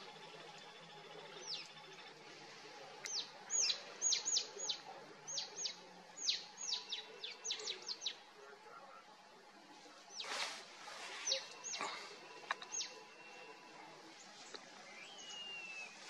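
Wild birds chirping in forest: a quick run of sharp chirps, each sweeping downward in pitch, from about three to eight seconds in, then a brief rush of noise, a few more chirps with a thin whistle, and a short rising-then-falling whistle near the end, over a faint steady background hiss.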